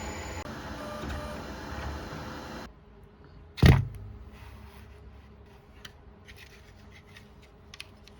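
3D printer running with a steady hum carrying a few steady tones, which cuts off sharply. About a second later there is one loud thump, then faint scattered clicks.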